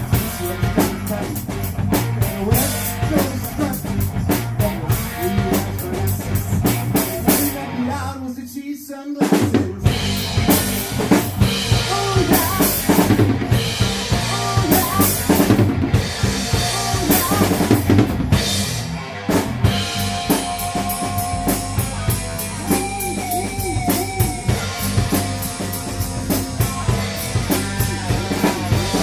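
Rock music with a driving drum kit (bass drum and snare) and bass, without singing; it briefly drops out about eight seconds in.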